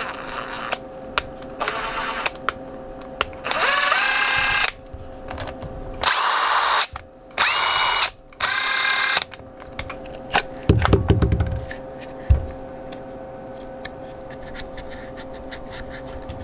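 DeWalt 20V brushless impact driver run with no load in four short trigger pulls, the motor whining up to speed each time: a test run after being rebuilt into a new housing. Clicks and handling knocks come between and after the runs.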